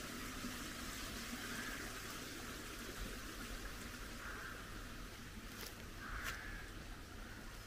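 Shallow stream trickling over a stony path, a steady watery hiss, with two short clicks about two-thirds of the way through.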